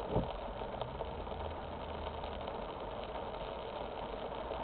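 Car engine idling, heard from inside the cabin as a steady low hum over a light hiss, with one short thump just after the start.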